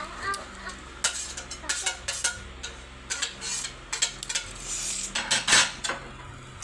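Spoons scraping and clinking against ice cream containers in irregular strokes, the loudest a little past five seconds in.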